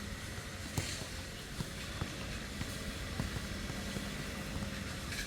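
Petrol grass-cutting machine running steadily with a low, even engine hum, with a few short knocks over the top.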